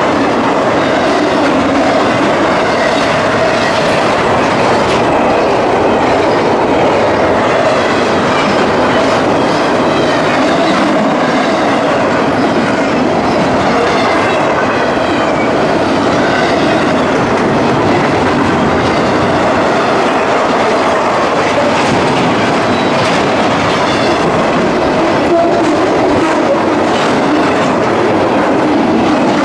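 Double-stack container train passing close by, its cars and wheels clattering steadily and loudly over the rails at the crossing.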